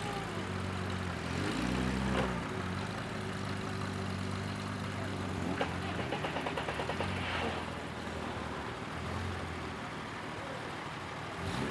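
Jaguar E-Type's straight-six engine running at low revs as the roadster creeps along and stops, a steady low drone. About six seconds in, a quick run of rattling clicks, roughly ten a second, lasts about a second.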